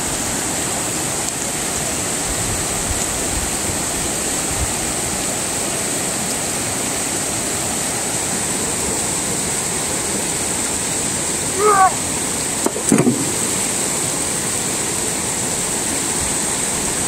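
Steady rushing of a stream flowing over rocks, a continuous even hiss. About two-thirds of the way through, a short pitched sound is followed by a brief thump.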